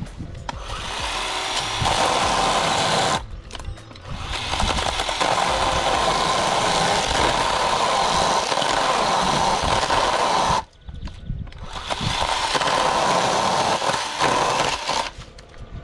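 Parkside 20 V cordless chainsaw's electric motor and chain running in three bursts of a few seconds each, stopping briefly between them.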